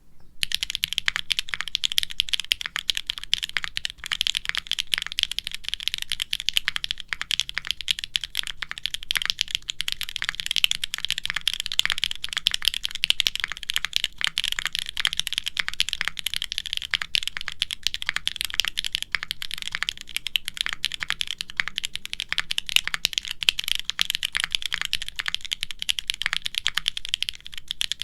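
Continuous fast typing on a custom QwertyKeys Neo65 mechanical keyboard: an aluminum case with a carbon fiber plate and no foam, fitted with HMX Sonja linear switches and GMK doubleshot ABS keycaps. It gives a dense, unbroken stream of key clacks with a muted, thin sound.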